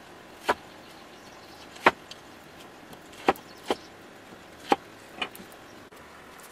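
Cleaver chopping a head cabbage on a thick wooden chopping block: six sharp chops, irregularly spaced about a second apart.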